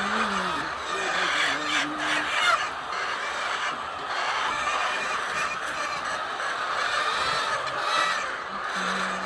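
Many chickens clucking at once, a steady, unbroken chorus from a flock of hens.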